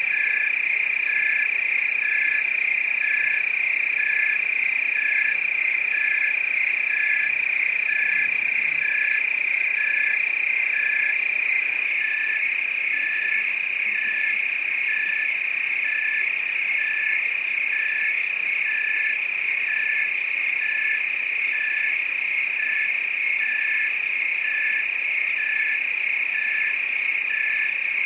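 Night chorus of frogs and crickets: a continuous high-pitched trill with a short chirp repeating at an even rhythm over it.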